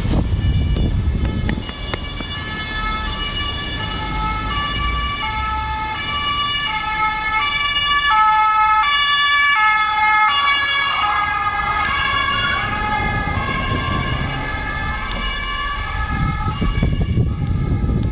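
German police patrol car's two-tone siren (Martinshorn) alternating between two notes, each held a little under a second. The pitch rises as the car approaches and drops as it passes, about ten seconds in. A low vehicle rumble is there at the start and grows near the end.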